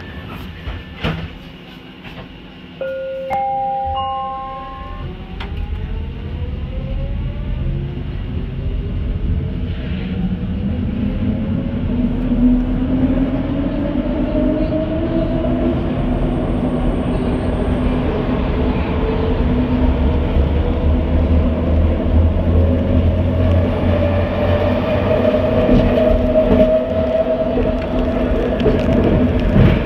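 Vancouver SkyTrain train departing a station. A short stepped chime sounds about three seconds in, then the linear-induction propulsion whines steadily up in pitch as the train accelerates. It then runs on at speed with a steady rumble and whine from the wheels on the guideway.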